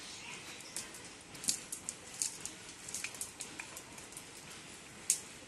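A cast net being gathered and sorted by hand, giving irregular light clicks and rustles as the mesh and its rim weights are handled, with one sharper click about five seconds in.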